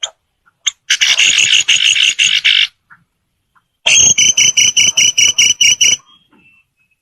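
Black-headed sibia calling: two fast chattering series of repeated notes, each about two seconds long at five or six notes a second, the second series with a clearer, higher repeated note.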